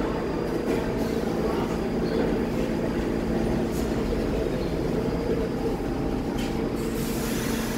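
R46 subway train rolling slowly into the station past the platform: a steady rumble of wheels and running gear with a low mechanical hum, and a few faint clicks.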